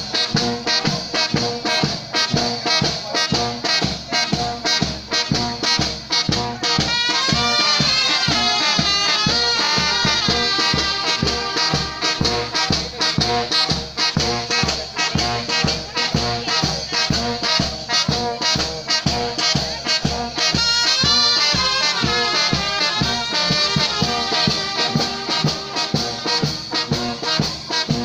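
Mexican village wind band (banda de viento) playing a brass tune with trumpets and trombones over a steady beat.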